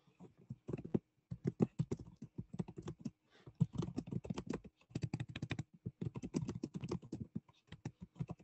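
Typing on a computer keyboard: quick runs of keystrokes in short bursts, with brief pauses between them.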